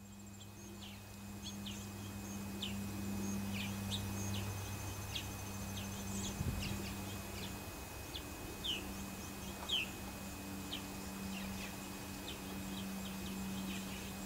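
Outdoor ambience of birds chirping, many short falling calls, over a steady low hum and a faint high insect trill.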